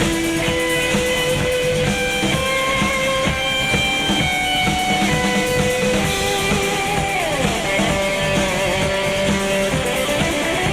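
Instrumental passage of a rock song: electric guitar playing a melodic line with slides over a steady drum kit and bass.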